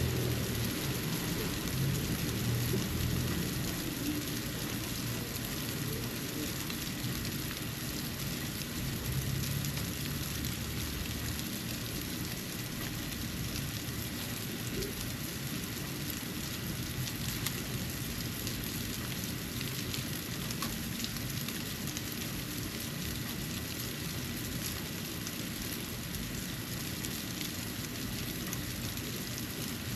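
Falling snow pattering steadily: an even, soft hiss with fine ticks. A low rumble underneath fades away about a third of the way in.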